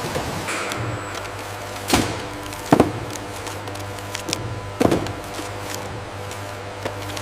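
Steady low machine hum with a few sharp knocks and thuds, the loudest a double knock almost three seconds in and another nearly five seconds in.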